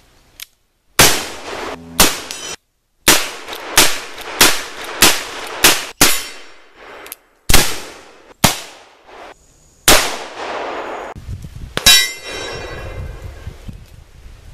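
A series of about a dozen shots from a Pietta 1858 Remington .44 black powder revolver, cut together with brief silent gaps, each shot followed by a ringing tail.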